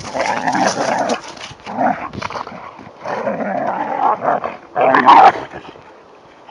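A Doberman and a Labrador play-fighting, growling and barking in irregular bursts, loudest about five seconds in.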